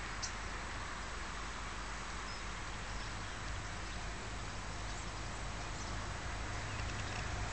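Steady background noise with a few faint clicks, and a faint steady hum that comes in about halfway and grows slightly toward the end: the approaching train, hauled by a CC 72000-class diesel locomotive, beginning to be heard.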